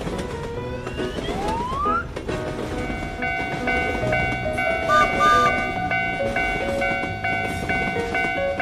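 Cartoon train sound effects. A tone slides upward in the first two seconds, then from about three seconds a chord of several steady notes is held over a continuous low rumble.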